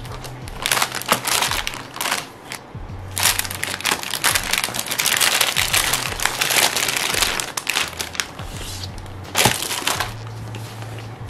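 Clear plastic packaging bag crinkling as it is handled and pulled open, in several bursts with the longest stretch in the middle and a sharp crackle near the end.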